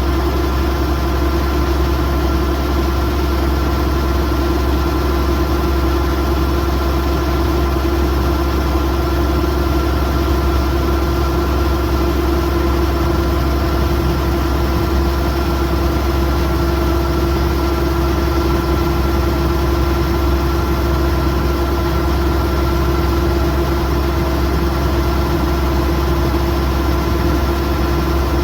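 Kubota DC108X combine harvester's diesel engine running at a steady speed, a constant drone with a steady hum that does not change.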